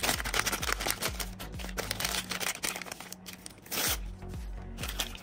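A small foil packet crinkling and tearing open in the hands, a dense run of crackles. Background music with a steady low beat plays underneath.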